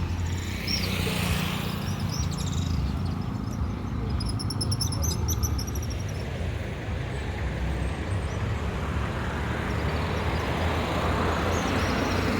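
Town street ambience: a steady low rumble, with a bird chirping in a quick run of high repeated notes about four to five seconds in and a few fainter chirps around it.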